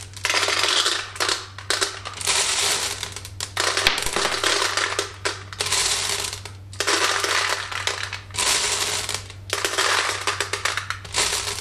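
Glass marbles clattering into a plastic paintball hopper, poured in by the handful, about eight pours one after another with short pauses between as more are scooped from the bucket.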